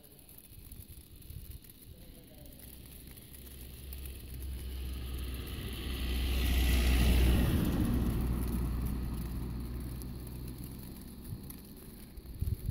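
A car driving past on a snow-covered road: a low engine hum and the hiss of tyres on snow swell to a peak about seven seconds in, then fade away.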